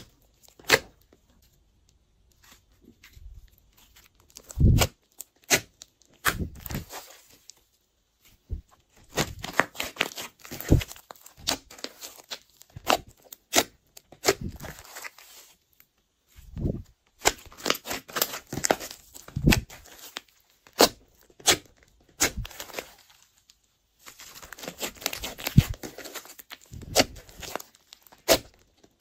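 Glossy slime being squished, stretched and folded by hand, giving sticky clicks and crackly pops in uneven bursts with short pauses between them.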